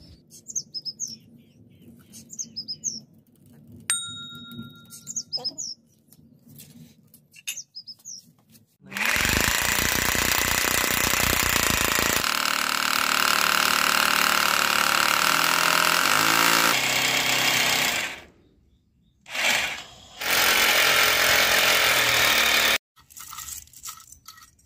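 Corded electric hammer drill boring anchor-bolt holes through floor tiles into the concrete beneath. It runs for about nine seconds, stops, gives a short burst, then drills for about three seconds more. Birds chirp in the quieter first stretch before the drilling.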